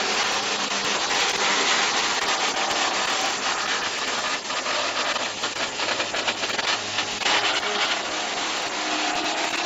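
Electric wood crusher grinding branches into sawdust: a steady, harsh grinding rush with a low hum underneath.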